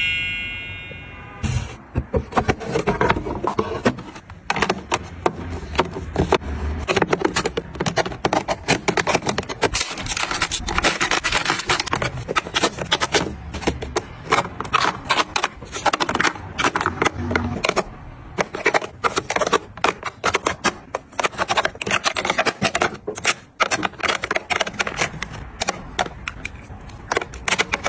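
Hands handling small objects, with a dense run of irregular clicks, taps and rustling scrapes as items are picked up, unpacked and set down.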